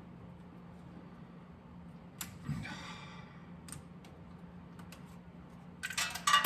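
Scattered clicks and taps of hand tools and small metal ignition parts being handled on a workbench, over a faint steady hum, ending in a brief, louder clatter about six seconds in.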